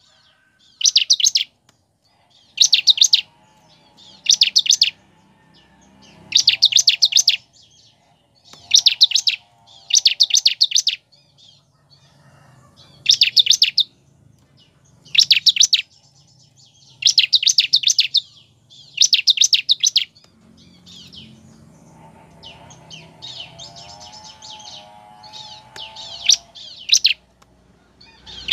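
Bar-winged prinia (ciblek) repeating a loud, rapid, high trilled call, each burst under a second long and coming about every one and a half to two seconds, giving way to softer, sparser chirps over the last several seconds. A fainter, lower wavering warble comes underneath at times.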